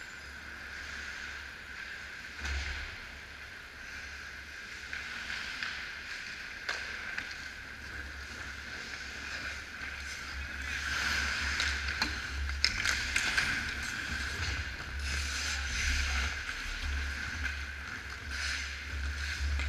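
Ice hockey skates scraping and carving the rink ice, with sharp clacks of sticks and puck, growing busier from about ten seconds in as players close in on the net. Under it runs a steady high hum and low rumble.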